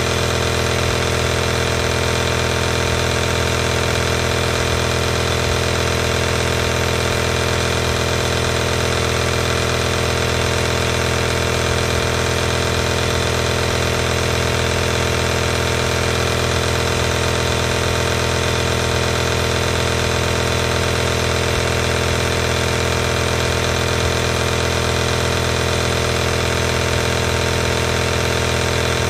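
Compressor nebulizer running, heard close up: a steady, unchanging mechanical hum from its compressor motor.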